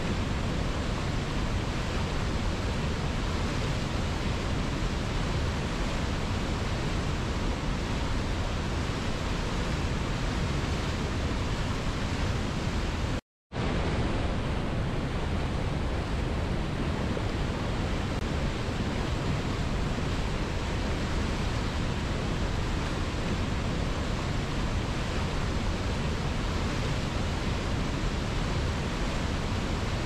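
Rushing whitewater: a river tumbling down a cascade and over rocks, a steady, even rush of water that cuts out to silence for a moment about thirteen seconds in.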